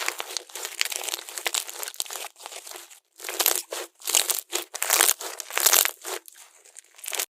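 Slime being squeezed and pressed by hand, giving irregular bursts of crackling, crunching noise. It cuts off suddenly near the end.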